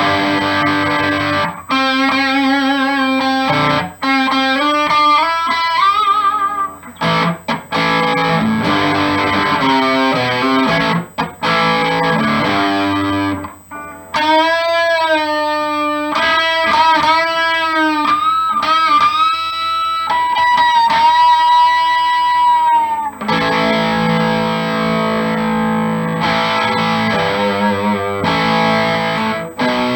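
Amplified electric guitar, a G&L Legacy Tribute with a Seymour Duncan Little 59 mini humbucker in the bridge position: strummed chords alternate with single-note lead phrases with string bends and vibrato, including a long held note about two-thirds of the way through, then chords again.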